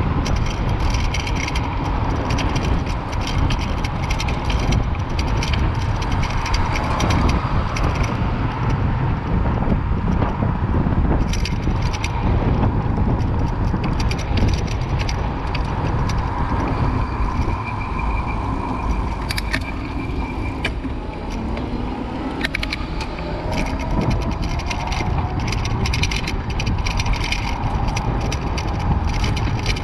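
A bicycle being ridden, heard from a camera mounted on the bike: wind rumbling on the microphone, with steady rattling and clicking from the bike and its front rack over the road.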